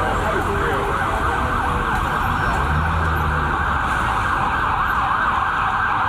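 Several emergency vehicle sirens wailing at once, their rising and falling tones overlapping, over a low rumble of traffic.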